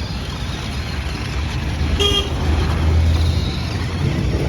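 A short horn toot about two seconds in, over a steady low rumble.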